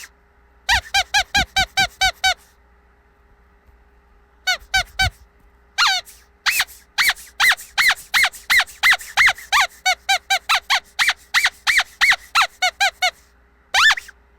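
Squeaky dog toy squeezed over and over, giving short, high-pitched squeaks in quick runs. A run of about eight comes early, then three, then a long run of rapid squeaks, and a last single squeak near the end.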